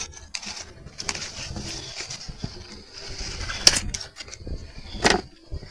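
Knife cutting and handling prickly-pear cactus pads among rustling plants, with two sharp snaps, about two-thirds of the way in and near the end. A bird calls faintly in the background.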